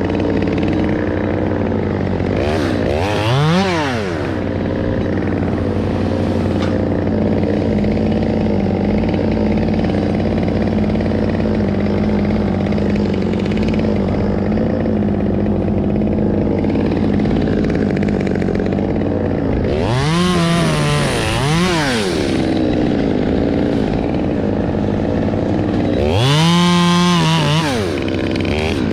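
Chainsaw revving up and dropping back several times: once a few seconds in, twice in quick succession about two-thirds through, and once held longer near the end, over a steady engine drone.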